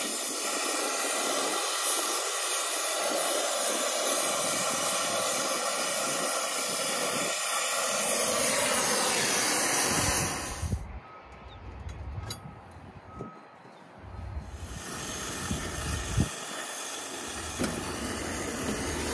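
Brazing torch flame hissing steadily as it heats a copper pipe joint on a heat pump reversing valve to unsweat it. The flame cuts off abruptly about eleven seconds in, leaving quieter low knocks and rumbles as the pipe is worked free with pliers.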